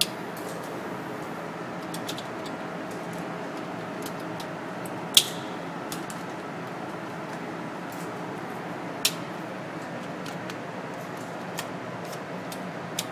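Steady hum of indoor ventilation, broken by about six sharp, short clicks. The loudest click comes about five seconds in and rings briefly; another strong one comes about nine seconds in.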